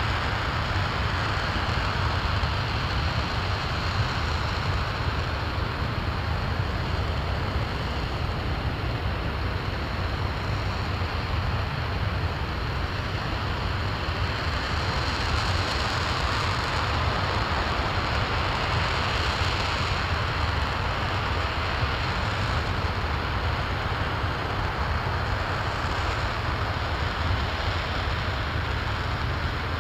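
Space Launch System RS-25 liquid-hydrogen/liquid-oxygen rocket engine firing steadily in a hot-fire test: a continuous deep rumble under a dense hiss, holding level with no change in thrust.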